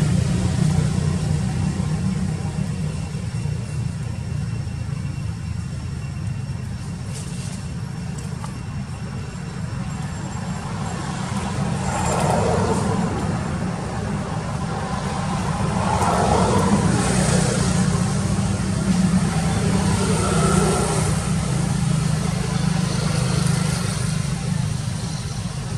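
Steady low hum of motor-vehicle engines, with traffic noise swelling and fading three times in the second half.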